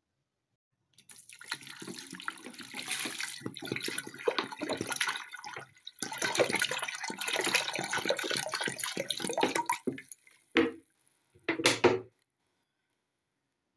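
Water poured into a steel cooking pot over raw meat, sliced onions and spices. It splashes steadily for about nine seconds with a short break midway, then comes two brief last splashes.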